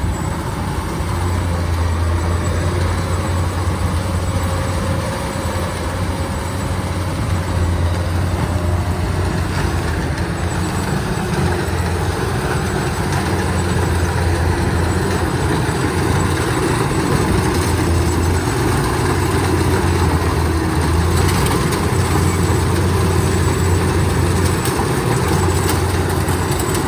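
Kubota DC-93 rice combine harvester's diesel engine running steadily, with a continuous low hum and machinery noise.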